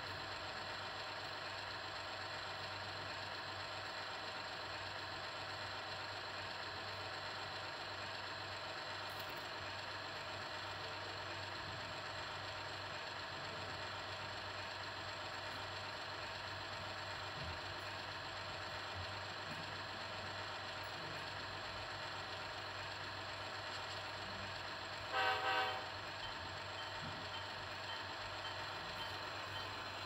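Soundtraxx Tsunami 2 sound decoder in an HO-scale Amtrak P32-8BWH model locomotive, playing a steady diesel engine sound through its small onboard speaker. Near the end a short horn toot sounds in two quick peaks.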